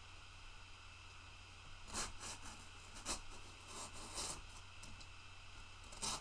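Box cutter slicing through packing tape and cardboard on a shipping box: a few short scraping strokes with pauses between them.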